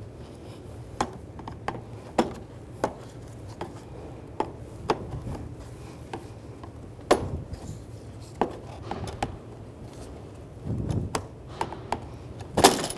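Plastic retaining clips of a Dodge Dart lower grille clicking and snapping as they are pried loose from the bumper cover with a trim tool, in irregular sharp clicks. A louder plastic clatter comes near the end as the grille comes free.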